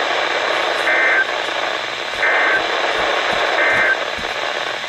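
Three short bursts of Emergency Alert System end-of-message data code, a buzzy two-tone digital squeal, about a second and a half apart over steady radio static, marking the end of the alert.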